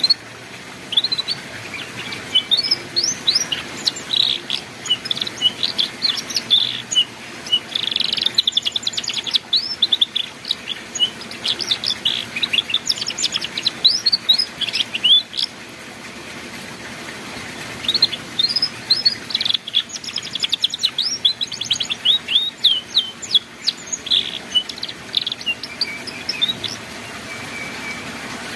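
Canary singing in the fast, chattering ngeriwik style: rapid runs of short high chirps in two long bouts, with a pause of about two seconds between them.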